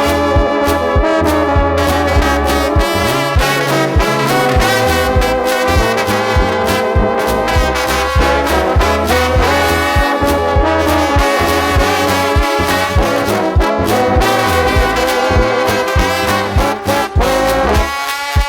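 Brass-led music, with trombones and trumpets playing sustained melody lines over a bass and a steady drum beat.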